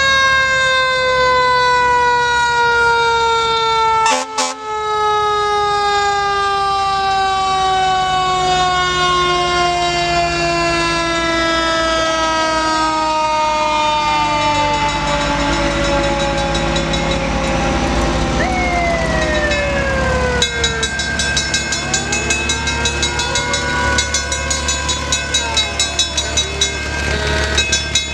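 Fire-truck siren winding down slowly after a quick wind-up, its pitch falling steadily over about fifteen seconds, typical of a mechanical siren coasting down. Over truck engines, another siren wails down and up in the second half, with a fast regular clatter under it near the end.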